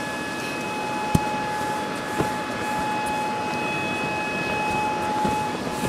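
Electric air blower of an inflatable bouncy castle running, a steady whine over rushing air. Two sharp knocks stand out, about a second and two seconds in.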